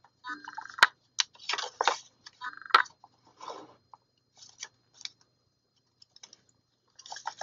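Paper pages of a ring-bound planner being turned and handled: soft, scattered paper rustles and light clicks, with one sharper click a little under a second in.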